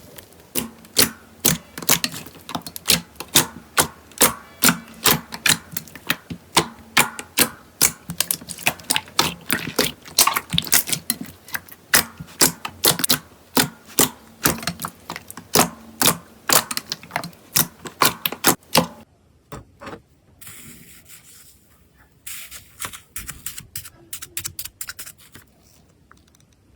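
Slime being pressed and worked by hand, giving a rapid run of sharp clicks and pops about three a second. The clicks stop about 19 seconds in, then come back in a lighter run for a few seconds.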